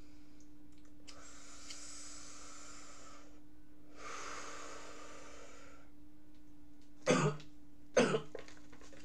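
A man breathing out hard twice in long hissing breaths, then coughing sharply twice near the end, just after swallowing a pill.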